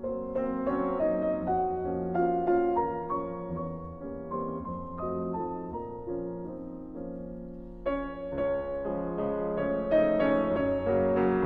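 Background piano music, a slow run of single notes and chords. About eight seconds in it grows louder and fuller.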